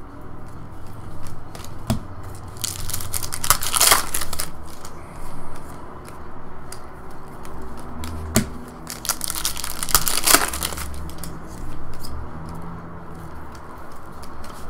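Trading cards being shuffled through by hand, the cards sliding and rustling against each other in two longer bursts, with a few light clicks as cards snap together.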